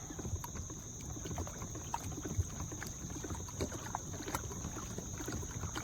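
Kayak being paddled: water splashing and dripping from the paddle strokes, with a few light clicks.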